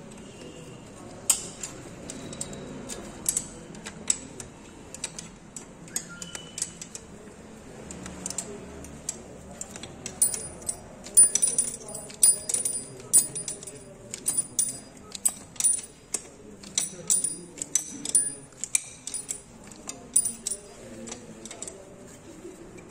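Irregular metallic clicks and clinks of a hand wrench working the fittings on a truck diesel engine. They come thicker and louder from about halfway through.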